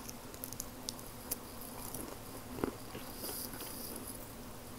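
Mouth sounds of chewing crispy bacon, picked up close by a wired earbud microphone: soft crunches and small wet clicks, with one sharper click about two and a half seconds in.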